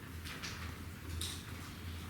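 Chamber room tone: a steady low hum with a few faint, brief clicks or rustles.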